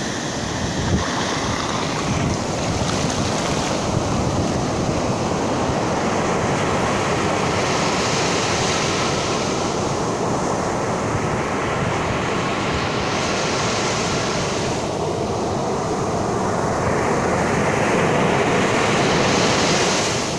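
Ocean surf washing onto a beach, with a wave breaking and hissing up the sand every five or six seconds over a steady rumble of water. Wind buffets the microphone.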